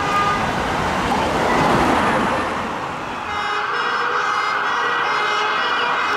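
Siren of a London ambulance, a Mercedes-Benz Sprinter fitted with a Whelen Alpha siren, wailing over city traffic noise. About three seconds in, the sound cuts to a cleaner, steady siren tone with many overtones and no traffic noise beneath it.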